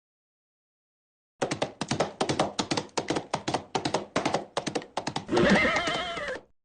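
Horse sound effect: quick clip-clop of hooves, starting about a second and a half in, then a wavering, falling horse whinny near the end.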